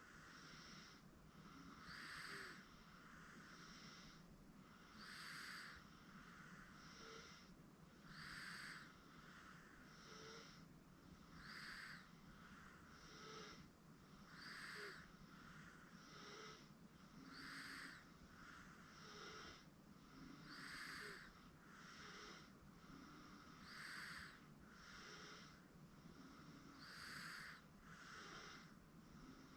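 Sleeping 8-month-old baby snoring softly: a breathy sound about every second and a half, stronger and weaker in turn, so the stronger breaths come about every three seconds.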